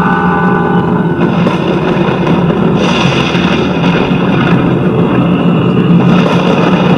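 Spooky Halloween soundtrack of eerie music and sound effects over a steady low drone. Held tones sound at the start, and a brighter layer comes in near three seconds.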